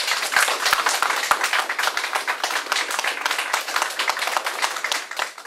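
A small audience applauding with many hands clapping, the clapping thinning out near the end.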